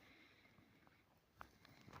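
Near silence, with one faint click about one and a half seconds in.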